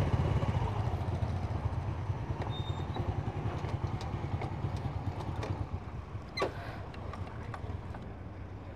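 Motorbike engine running at low speed, a low pulsing rumble that gradually fades, with one short sharp sound about six seconds in.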